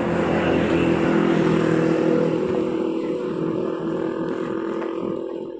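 A motor vehicle's engine passing close by on the road, with a steady engine note over tyre and wind noise. It grows louder over the first second or two, then slowly fades.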